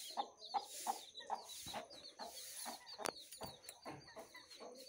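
Chicken clucking in repeated short notes, about two a second, over a fast steady run of small high chirps. A single sharp click about three seconds in.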